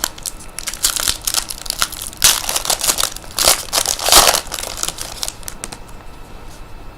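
A trading-card pack's wrapper being torn open and crinkled, a run of sharp crackles loudest about two to four seconds in that thin out after about five seconds.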